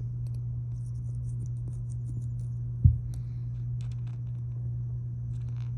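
Razor blade scraping cured windshield-repair resin off the glass: faint, sparse scratchy ticks over a steady low hum, with one thump about three seconds in.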